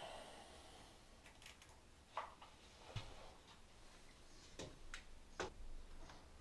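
A few faint, sharp taps and clicks, spaced irregularly, over a quiet room background.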